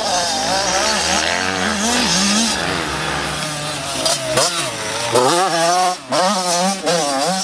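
A 2011 Yamaha YZ85's 85 cc two-stroke single-cylinder engine is revving up and down while being ridden, its pitch repeatedly rising and falling with the throttle. The sound drops away briefly about five seconds in and again about six seconds in.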